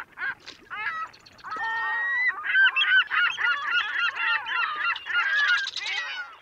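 A flock of birds calling, with many honking calls overlapping one another and growing denser after the first second or so.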